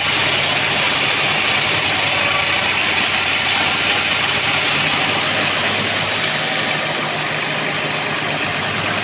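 Homemade band sawmill running steadily, most likely with its blade cutting a trembesi log. A steady engine hum lies under a loud high hiss, which eases slightly about two thirds of the way through.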